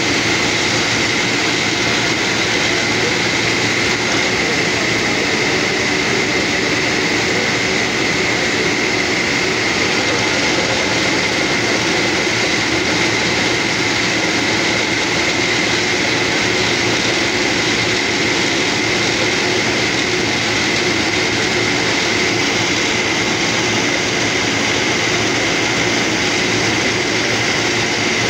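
Compressed-air borewell drilling rig running steadily while boring, with air blowing the cuttings up out of the hole as dust. The noise is loud and unchanging, with a steady high whine over it.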